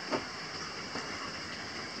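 Steady rush of flowing water. Just after the start a short sharp sound drops quickly in pitch, and a fainter tick comes about a second in.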